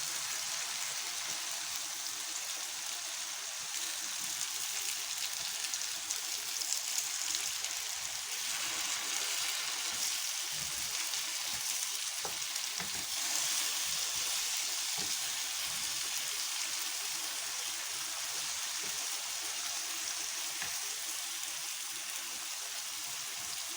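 Sliced liver and onion sizzling steadily in a hot frying pan, with a few scattered clicks of a utensil stirring it.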